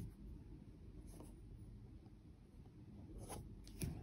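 Faint rasps of an embroidery needle and stranded thread being drawn through taut hoop-stretched fabric as stitches are made, a few short pulls about a second in and near the end.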